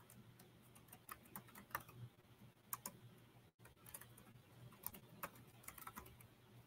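Faint, irregular computer keyboard typing and clicking, a few keystrokes a second, over a low steady hum. The sound drops out for an instant about halfway through.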